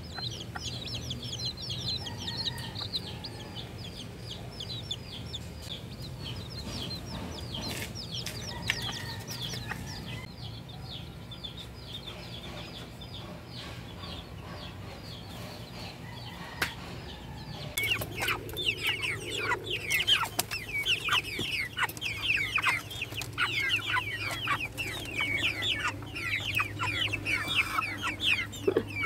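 Chicks peeping: many rapid, high, falling peeps that thin out through the middle, then come back loud and dense over the last third.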